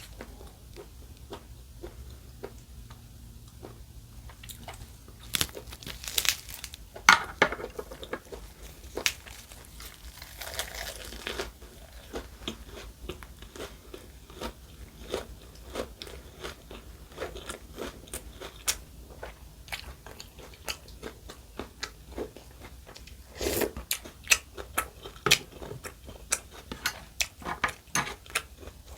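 A person chewing and crunching food close to the microphone, with many small wet mouth clicks. There are louder crunches about six seconds in, again around ten seconds, and once more near the end.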